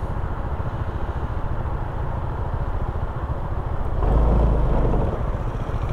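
A 2015 Honda PCX150 scooter's single-cylinder four-stroke engine idling, with a fast, even low pulsing. A deeper rumble swells for about a second near the end.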